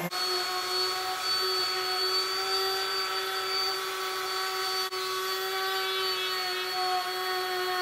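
Electric random orbital sander running steadily with a whine, its 120-grit paper sanding the white paint off the fibreglass of a surfboard around the fin box. A momentary dip about five seconds in.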